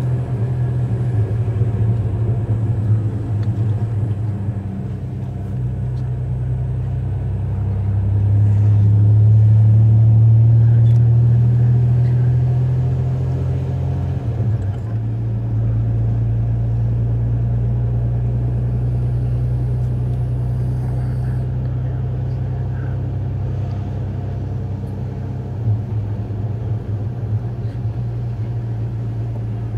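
Chevrolet pickup truck's engine running, heard from inside the cab as a steady low drone that swells louder for a few seconds about a third of the way in.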